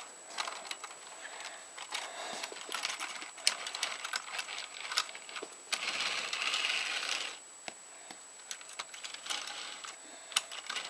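Small plastic clicks and rattles as an N gauge toy train is handled and its wheels are pressed onto plastic track. About six seconds in there is a brief rasping noise lasting over a second.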